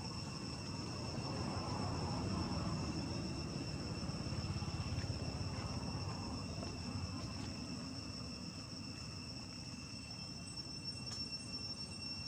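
Insects trilling steadily on one high, unbroken pitch, over a low background rumble that swells for a few seconds in the first half.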